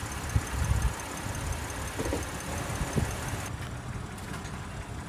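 Low steady rumble of an idling car engine, with a few soft thumps.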